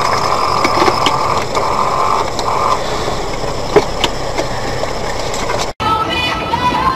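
Steady vehicle and road noise picked up by a dash cam, with a broken whine in the first few seconds and a few sharp clicks and knocks. The sound cuts off abruptly near the end and a different recording begins.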